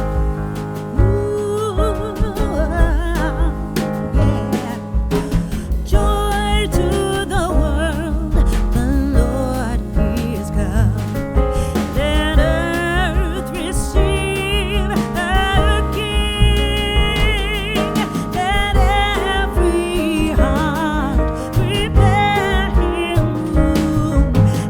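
Background music: a singing voice with wavering, held notes over bass and a steady beat.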